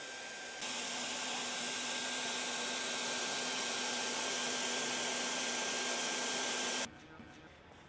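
Hot-air blower of a Leister Variant T1 tape welder running: a steady hiss of blowing air with a faint steady whine. It gets louder about half a second in and cuts off sharply near the end.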